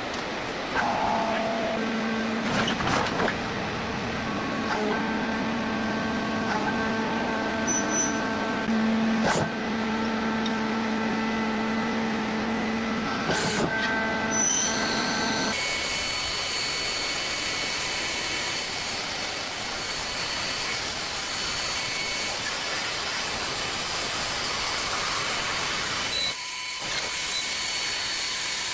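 CNC machine running: a steady whine of several tones, which about halfway through switches suddenly to a loud, steady hiss.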